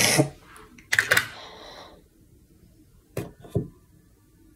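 Close handling noise: two short hissing rustles, then two soft knocks a little after three seconds in.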